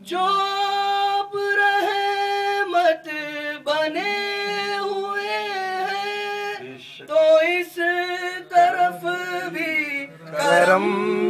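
A man singing a naat unaccompanied, drawing one word out into long held notes that bend slowly in pitch, with short breath breaks between them.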